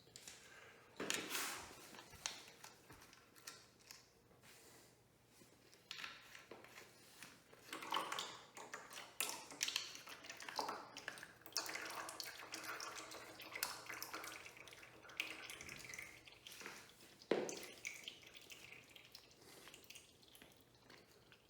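Irregular clicks, clinks and knocks of a socket wrench and small metal engine parts being handled while the oil filter cover bolts and cover come off a Suzuki DRZ400 engine, with one sharper knock about 17 seconds in.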